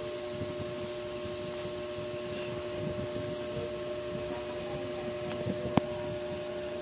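Steady mechanical hum holding two constant tones, with a single sharp click near the end.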